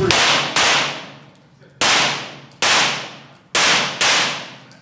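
Six pistol shots fired in uneven pairs and singles, each echoing and dying away over about a second in the enclosed indoor range.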